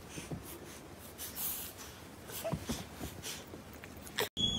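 Faint, irregular breathy sniffs and snuffles with soft rustling from a toddler and a Chihuahua close together on a couch. A short sharp sound comes near the end, then the sound cuts off abruptly.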